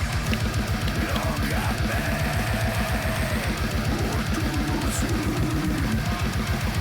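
Heavy metal background music: distorted electric guitar over fast, even kick-drum beats.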